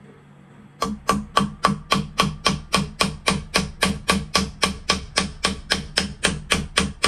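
Hammer tapping steadily on a roll pin punch, about four sharp taps a second starting about a second in, driving the shell latch roll pin out of a Benelli M4 receiver.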